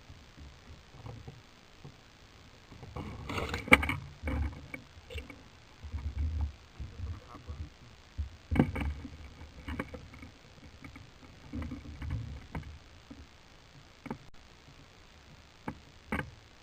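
Irregular low thumps and knocks, with a few sharp clicks, about 3 seconds in, about 8.5 seconds in, and near the end.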